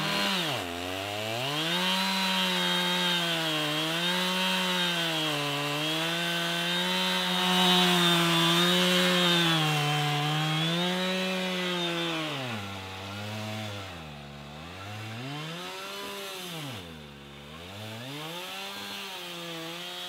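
Chainsaw slabbing mill cutting through a London plane log. Its two-stroke engine runs at high speed, the pitch wavering up and down as the cutting load changes. In the last third it bogs down deeply several times and picks back up between the dips.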